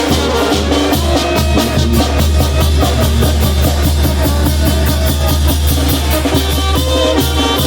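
Oaxacan brass band (banda) playing live, with drums keeping a steady, fast beat under a strong bass line.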